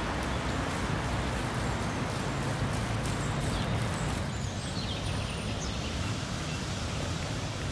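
Steady outdoor ambient noise, an even wash with no single clear source.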